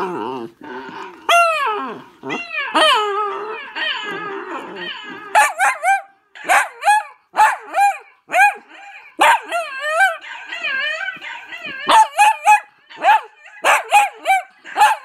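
A young dog howls and whines into a microphone, then switches to short barks and yips about twice a second from about five seconds in. Its voice is played back through an effects pedal set to echo.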